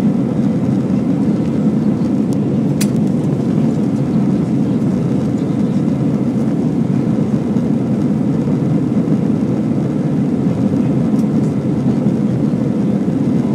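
Steady engine and airflow noise inside the cabin of a jet airliner climbing after take-off. There is one faint click about three seconds in.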